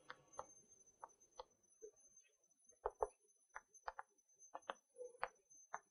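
Chalk tapping on a blackboard while writing: faint, short, irregular clicks, a few a second, as each stroke of the chalk meets the board.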